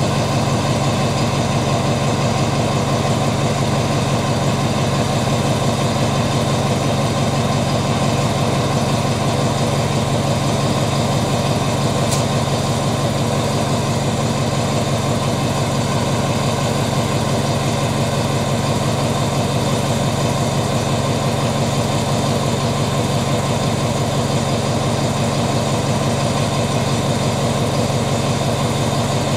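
Alsthom diesel-electric locomotive's engine running steadily at idle, a deep continuous drone.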